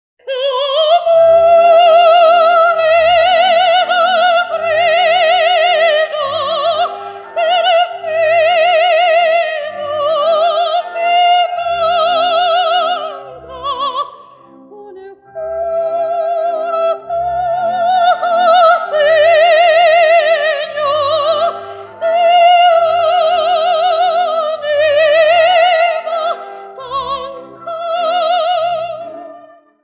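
Operatic soprano singing long high notes with a wide, fast vibrato, over an instrumental accompaniment. The singing breaks off briefly about fourteen seconds in, then carries on.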